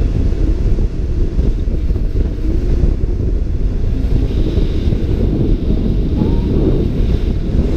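Wind blowing over an action camera's microphone during a paraglider flight, heard as a steady, deep rumble.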